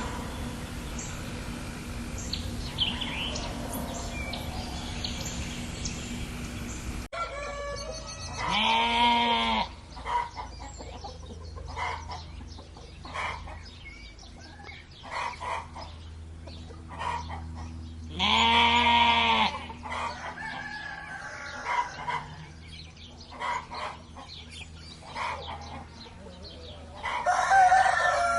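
Small birds chirping over outdoor background noise, then a sudden change to farmyard animals: three loud, drawn-out calls about ten seconds apart, with short clucks and pecks between them.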